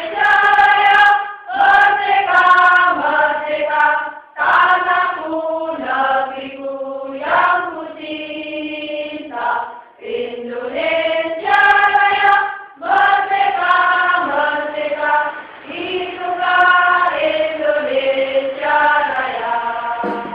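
A choir of women singing together, in short sung phrases separated by brief pauses.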